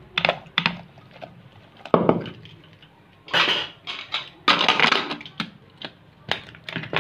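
Metal clinks and scrapes against an aluminium pressure cooker: a spoon stirring the ingredients in the pot, then the lid going on and being locked shut. Sharp clicks near the start and end, with rasping scrapes in the middle.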